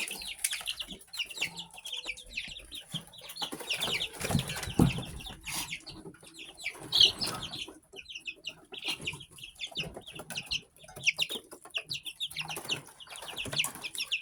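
A flock of young chickens peeping in quick, high, repeated cheeps, with scattered knocks and scuffles as they scramble after one another.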